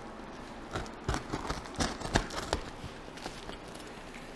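A box cutter slitting the plastic packing tape on a cardboard parcel while hands handle the box: irregular short taps, scrapes and crinkles, busiest in the first half.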